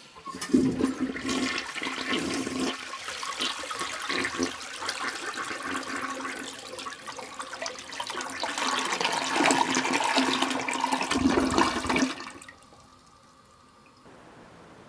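Urinal flushing: water rushing through the bowl and down the drain, steady for about twelve seconds, then cut off suddenly, leaving only a faint hiss.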